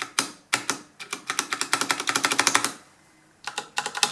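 Keys of a Filco Majestouch 2 TKL mechanical keyboard with Cherry MX brown switches being pressed: a few single clicks, then a fast run of presses lasting about a second and a half, a short pause, then more presses. The big keys such as Enter, whose metal stabilizer bars add a slight metallic noise, are being tried.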